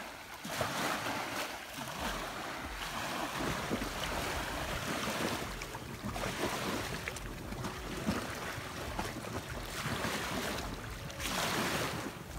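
Wind-driven lake waves lapping and splashing against the shoreline, swelling and easing every few seconds, with wind buffeting the microphone.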